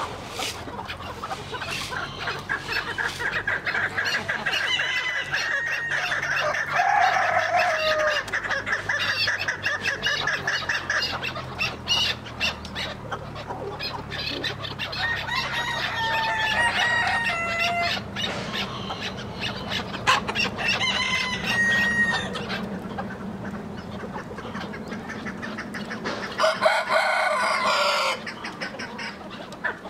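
Chickens clucking and calling, with a rooster crowing once near the end.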